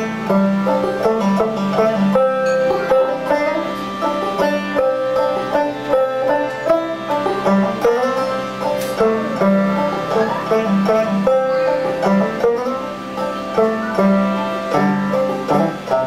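Instrumental break: a banjo picking a melody of quick plucked notes over sustained harmonium chords, with no singing.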